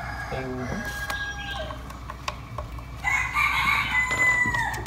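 A rooster crowing: one long drawn-out call starting about three seconds in, its pitch falling away at the end, with fainter calls before it.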